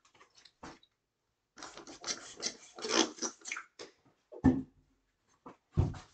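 A dry-erase whiteboard being wiped clean with an eraser: a quick run of rapid scrubbing strokes for a couple of seconds, then two dull thumps.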